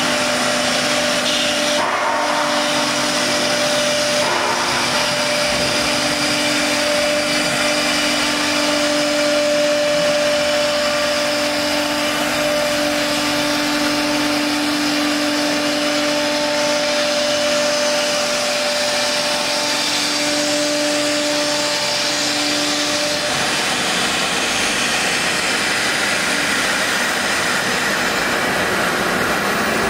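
Three-spindle CNC router carving a wooden door panel, running with its dust extraction: a steady rushing machine noise with a few held whining tones. The tones stop about three-quarters of the way through while the rushing noise goes on.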